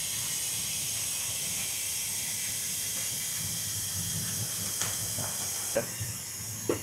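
A steady, even hiss that drops away near the end, with a few faint light clicks in its last couple of seconds.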